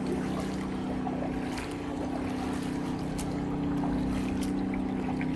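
A boat motor running at a steady pitch, a hum of several even tones, with a few faint clicks over it.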